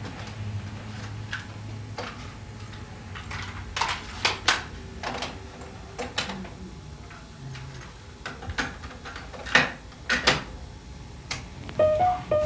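Clicks and clunks of a portable cassette radio being handled: buttons pressed and the tape deck worked, a dozen or so short sharp knocks at uneven intervals.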